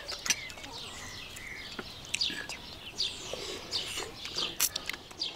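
Small birds chirping, with quick, high, falling notes repeated over and over, and a few sharp clicks among them.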